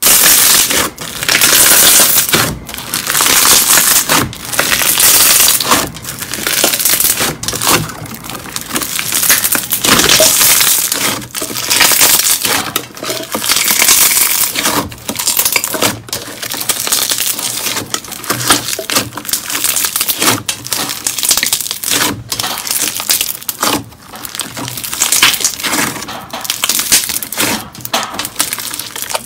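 Thick white slime squeezed and kneaded by hand, giving a dense crackling and popping full of tiny clicks. It swells and eases with each squeeze, about every one to two seconds.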